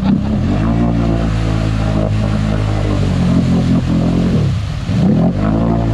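850 cc twin-cylinder ATV engine revving hard and holding high revs. The revs fall away about four and a half seconds in, then climb again near the end.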